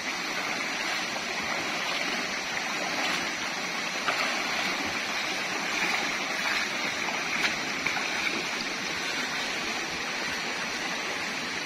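A shallow, rocky stream rushing steadily over stones, with a few splashes from feet wading through it, about four seconds in and again around seven to eight seconds in.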